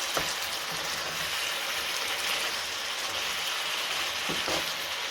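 Chicken breast pieces and carrot sizzling steadily in hot olive oil in a frying pan, with a couple of faint clicks.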